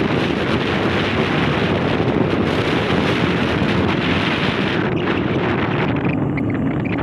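Steady wind noise buffeting the microphone of a moving motorbike, its hiss easing a little about five seconds in.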